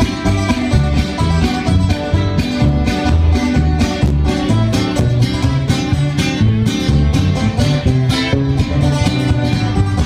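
Instrumental break of a Mexican grupera band's song: a plucked guitar melody over a rhythmic bass line and steady percussion, with no vocals.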